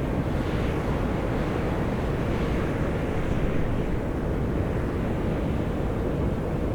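Volcanic fumarole on Atosanupuri (Mt. Io) venting steam and gas: a steady hissing rush that brightens slightly for a few seconds near the start.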